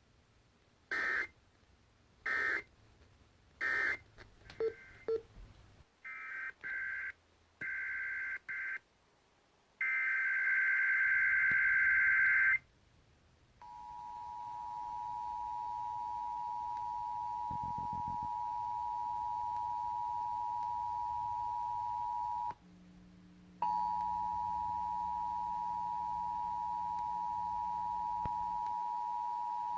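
Emergency Alert System tones: a series of short warbling digital data bursts, then a longer burst, followed by the steady two-tone EAS attention signal, which drops out for about a second a little past two-thirds of the way in and comes back.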